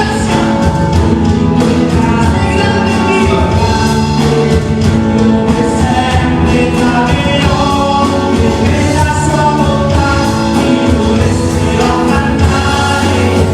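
Worship music played by a band, with singing over the accompaniment. The song goes on at a steady, loud level with sustained chords.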